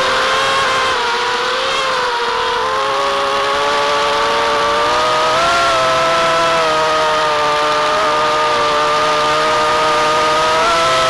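Racing quadcopter's brushless motors and propellers whining in flight, several tones wavering together and rising briefly near the middle as the throttle changes.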